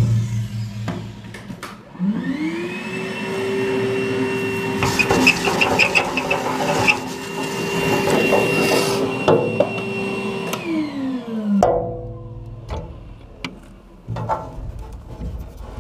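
Vacuum cleaner switched on about two seconds in, running steadily as its crevice nozzle sucks up concrete drilling dust on the safe floor, then switched off and winding down. A few light knocks and clicks follow near the end.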